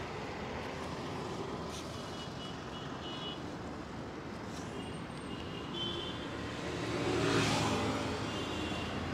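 Steady road traffic noise with a vehicle passing, its sound swelling and fading about seven seconds in. Two short runs of high-pitched beeps or chirps sound in the first half.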